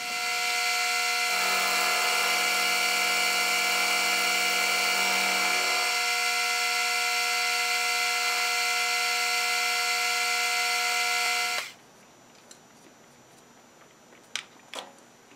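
Milling machine spindle starting up and running with a steady whine of several tones while a 7/16-inch carbide end mill cuts along the side of a metal key blank; lower tones join in for a few seconds from about a second in. The machine stops a little before the end, leaving a few faint clicks.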